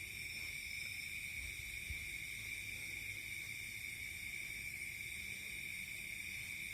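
Steady insect chorus: a continuous high-pitched chirring that holds an even level without breaks.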